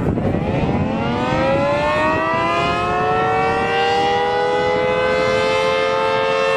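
Civil defense siren winding up, its wail rising in pitch over about two seconds and then holding steady, until it cuts off suddenly.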